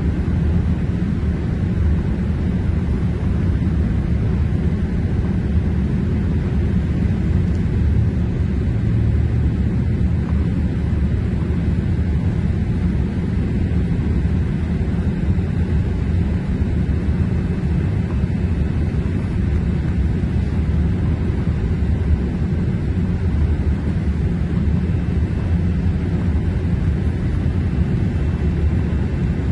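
Boeing 787 in flight heard from inside the cabin at a window seat beside the engine: a steady, low rumble of engine and airflow noise that holds even throughout.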